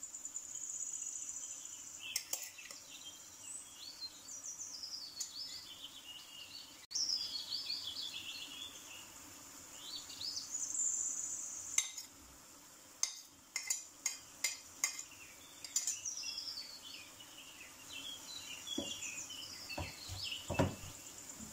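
Ground beef frying in a non-stick pan, sizzling steadily, with a run of sharp utensil clicks against the pan around the middle. Near the end a wooden spatula stirs and scrapes through the meat and onions.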